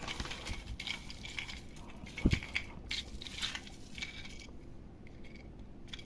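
Plastic parcel packaging crinkling and crackling as it is handled and opened, with one dull thump a little past two seconds in; the crinkling dies away near the end.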